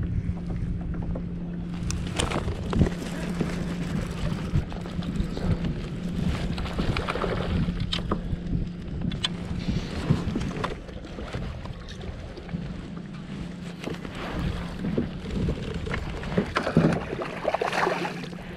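Wind buffeting the microphone on a fishing kayak, with water around the hull and a steady low hum underneath. Scattered sharp knocks and splashes come as a bass is caught from the kayak.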